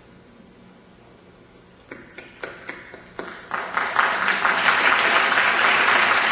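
Audience applauding in an auditorium: after a couple of seconds of faint room hum, a few scattered claps start, quickly swelling into full, steady applause.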